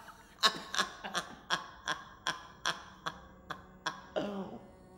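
About ten sharp taps at an even beat, roughly three a second, stopping near four seconds in, followed by a short vocal sound from a man.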